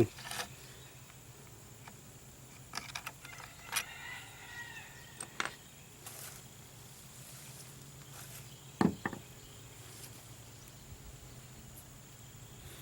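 Sparse small clicks and knocks of hand work on a plastic trolling-motor head as the screws and switch parts come out, the loudest pair about two thirds of the way through. Behind them, a faint steady hum and a thin high insect drone.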